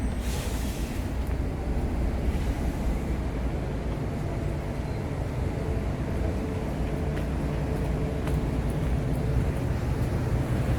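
Steady road traffic noise: a low rumble of passing vehicles, with a faint engine hum in the second half.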